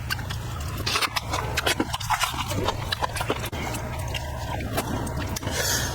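Close-up eating sounds of a person eating pork ribs and tendon: wet mouth smacks and chewing clicks at an irregular rate over a low steady hum.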